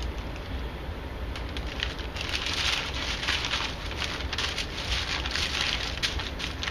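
Wax paper and a plastic vacuum-seal bag rustling and crinkling as a sheet of paper is laid and spread inside the bag, a steady run of small crackles.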